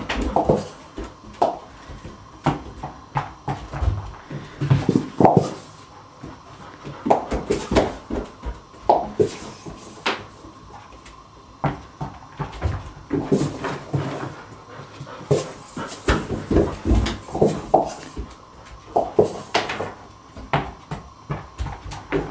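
Border Collie scrambling about in a bathtub, her claws and paws knocking and scraping on the tub as she plays with a tennis ball. The knocks and thumps are sharp and irregular, some coming in quick clusters.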